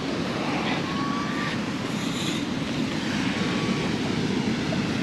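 Steady low rush of surf and wind, with soft scraping of a long-handled metal sand scoop digging into beach sand now and then.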